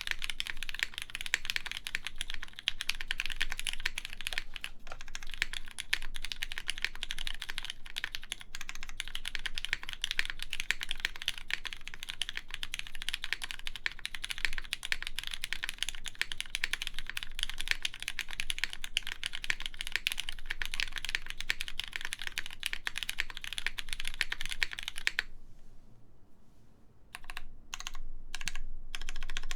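Fast, continuous typing on a custom JJW Derivative mechanical keyboard with lubed Cherry MX Black linear switches, GMK keycaps and a polypropylene plate. Near the end the typing stops for about a second and a half, then comes back as a few separate keystrokes.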